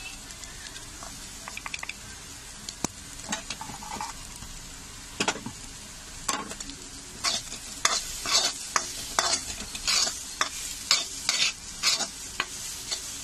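Chopped green beans sizzling lightly in a kadhai while a metal spoon stirs and scrapes against the pan as ground masala is mixed in. A few light clicks at first, then repeated loud scraping strokes from about halfway.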